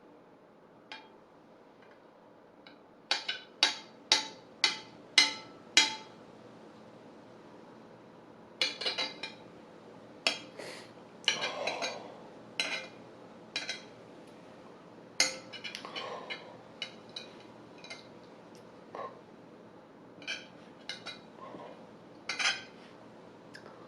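Eating utensil clinking against a plate in sharp taps with a short ring: a quick run of about six a few seconds in, then scattered taps.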